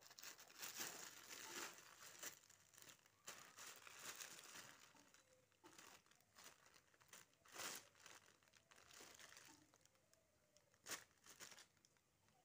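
Thin clear plastic bag crinkling and rustling in irregular, faint bursts as a kitten plays inside it, pushing its head in and pawing at the plastic, with a few sharper crackles later on.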